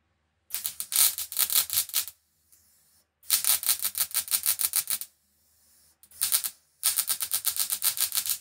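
Welder tack welding a muffler to an exhaust pipe, crackling in four short bursts of rapid, even clicks.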